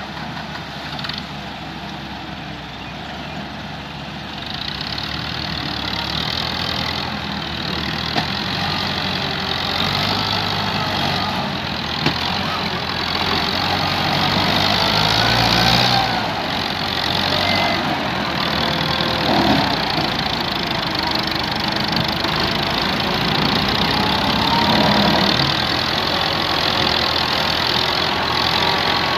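Massey Ferguson tractor's diesel engine running hard while pulling a heavily loaded soil trolley, getting louder after a few seconds; the load is heavy enough to lift the tractor's front wheels.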